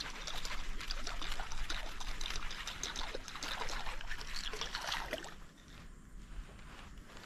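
Water splashing and trickling, a busy run of small splashes and drips that dies down about five seconds in.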